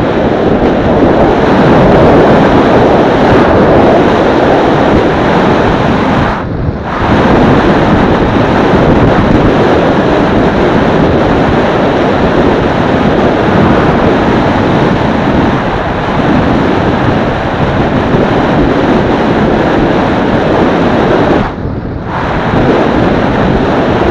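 Loud, steady rush of wind buffeting the microphone of a camera on a road bike riding fast on a wet road. The rush dips briefly twice, about a quarter of the way in and again near the end.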